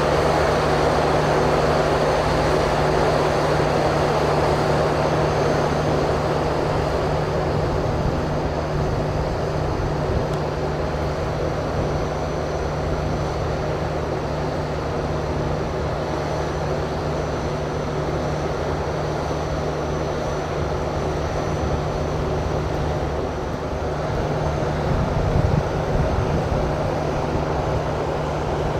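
Steady drone of a passenger train's onboard machinery: a constant low hum with an unchanging pitch under a broad whir, a little louder in the first few seconds.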